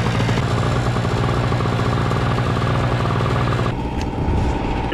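Small portable gasoline generator running steadily just after being pull-started. Near the end the sound changes abruptly and a steady whine comes in.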